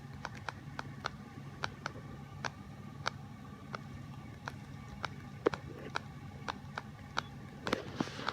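Pet bird imitating computer keyboard typing with irregular sharp clicks, about two or three a second, bunching closer together near the end.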